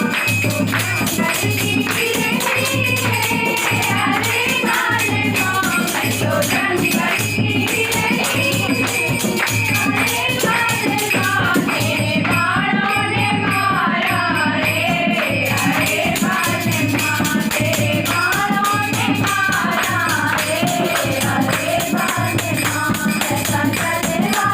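A group singing a devotional kirtan in chorus, with a steady drum beat about one and a half times a second and jingling hand percussion.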